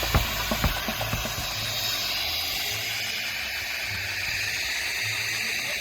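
Music with a steady beat fading out in the first second, then a steady hiss.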